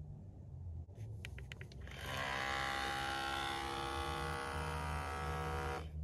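Small electric pump of a Cera+ PRO portable espresso machine running steadily for about four seconds, then cutting off suddenly, as it pushes water through the coffee puck. A few quick clicks come just before it starts.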